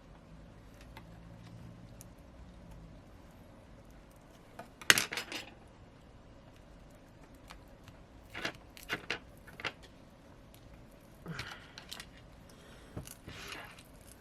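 Small tools clicking and scraping against a smartphone's body and battery as the glued-in battery is pried out. There are irregular sharp clicks, the loudest about five seconds in, and short rough scrapes near the end.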